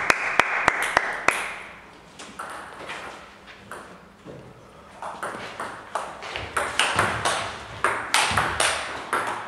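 Table tennis ball bouncing in a steady rhythm of about three bounces a second, stopping just over a second in; after that, scattered, irregular ball clicks and faint voices.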